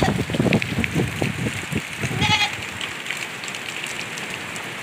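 A goat bleats once, about two seconds in, a short quavering cry over steady heavy rain. Wind gusts buffet the microphone in the first two seconds.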